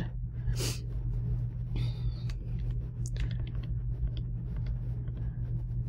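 Steady low hum with a few faint clicks and soft rustles.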